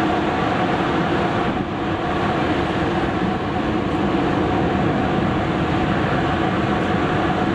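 Boeing 747-400's four jet engines at takeoff thrust as the airliner climbs out after takeoff: a loud, steady roar with a faint steady hum in it.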